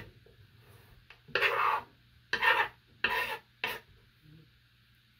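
Paring knife scraping against quince flesh and a wooden cutting board: four short rasping strokes in quick succession, starting about a second in, over a faint steady low hum.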